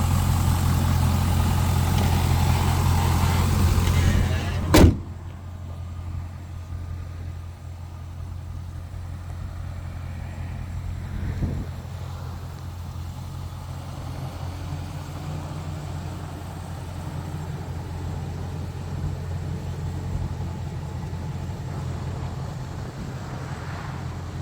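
HSV Clubsport R8's 5.7-litre LS1 V8 idling steadily. About five seconds in there is a single loud slam, and after it the idle sounds quieter and more muffled.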